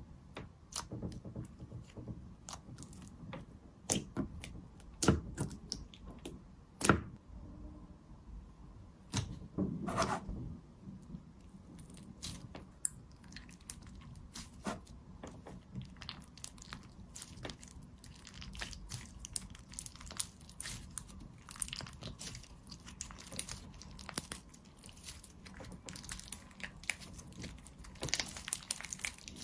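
Slime being squeezed and worked by hand: a close, irregular run of sticky clicks and pops, with a few louder pops in the first seven seconds, a longer crunchy squish around ten seconds, and quicker, denser crackling later on.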